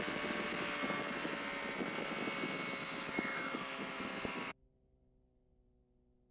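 FlightStar ultralight's engine and propeller running, with wind rush on the camera microphone. The sound cuts off suddenly about four and a half seconds in, leaving near silence.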